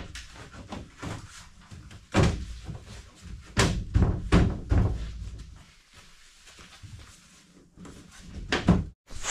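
A handful of hollow thuds and knocks as the fibreglass deck is handled and settled on the boat's hull: one about two seconds in, a quick run of three a little later, and one more near the end.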